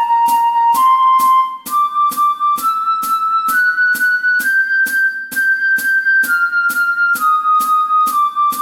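Flute playing a slow step-by-step practice exercise: about five held notes climb one by one, the top note is held longer, and then the line steps back down. A steady ticking beat keeps time beneath it.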